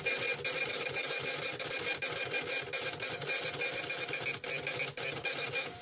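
Kitchen ticket printer rattling out an order: a fast, dense mechanical clatter over a steady high whine.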